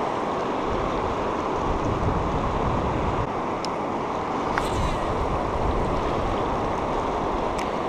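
Steady wind noise on the microphone mixed with the rush of the river current. A few faint ticks come through, one near the middle.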